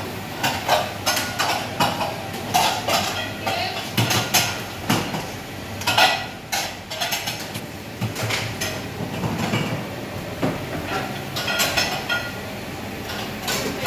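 Kitchen clatter during service: plates, pots and utensils clinking and knocking against each other and on steel counters, many times over.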